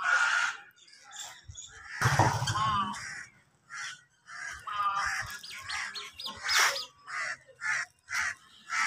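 Crows cawing over and over, with other small birds chirping. A louder, fuller call or burst comes about two seconds in.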